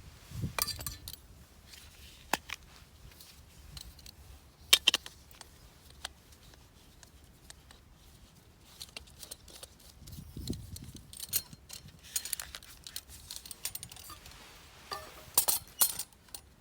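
Scattered sharp knocks and clacks of hard zelkova firewood during splitting work, at irregular intervals, with the loudest pair about five seconds in and a quick cluster near the end.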